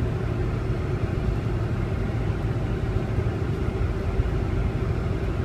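Cabin noise inside a Boeing 747-400 rolling on the ground, its Rolls-Royce RB211 engines at low power: a steady low rumble with a steady hum over it.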